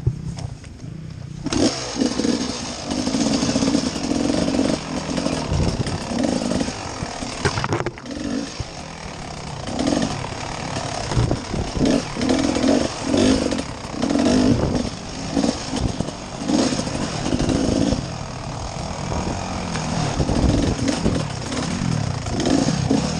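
Dirt bike engine revving up and down in short bursts as the throttle is worked over rough ground. It picks up sharply about a second and a half in.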